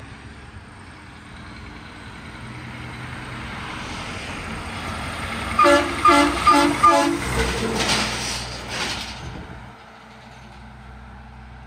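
A semi truck's diesel engine grows louder as it approaches and passes close by, then fades as it drives away. As it draws level about halfway through, it sounds its air horn in four short blasts.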